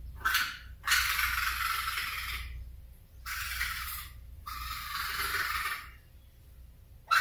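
A baby raccoon calling: a short call, then three longer breathy, hiss-like cries of about one to two seconds each, with short pauses between them.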